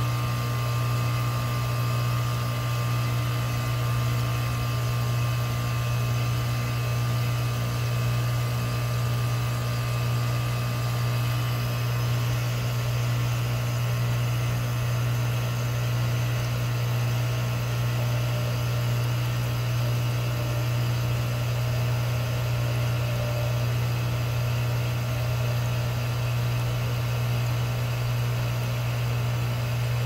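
Bryant heat pump outdoor unit running steadily, a constant low hum with a fainter hiss above it and no change in pitch or level.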